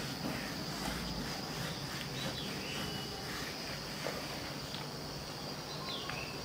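Whiteboard duster rubbing across a whiteboard as it is wiped clean, a soft scrubbing sound over a steady high whine in the background.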